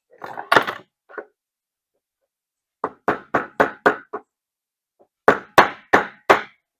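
Hammer tapping on a screwdriver used as a punch to drive the pin out of a Zenith carburetor's choke shaft arm. A few sharp metal taps come first, then a run of about six quick strikes and, after a pause, four more. The pin is stuck and won't drive out with the screwdriver.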